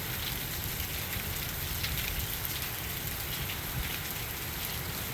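Heavy hurricane rain pouring down in a steady hiss, with a rumbling low undertone of gusting wind.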